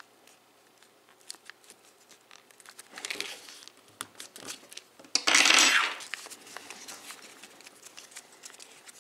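Folded origami paper crinkling and rustling as it is creased and pressed, with small ticks of handling. A short rustle about three seconds in, and a louder one a little after five seconds.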